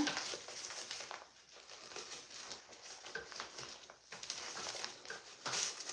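Faint rustling and small plastic clicks as a hair dryer and its attachment are handled and fitted together.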